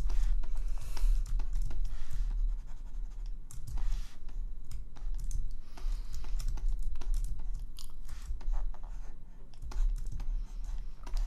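Scattered clicks and short scratchy strokes from computer input gear, keyboard keys and a stylus on a graphics tablet, over a steady low mains hum.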